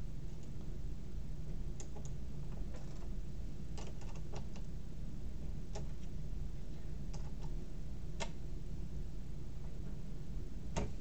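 Scattered light clicks and ticks, about one every second or two, of a small metal wrench working the wheel-assembly screws loose on an Elegoo Neptune 4 3D printer's print-head carriage, over a steady low hum.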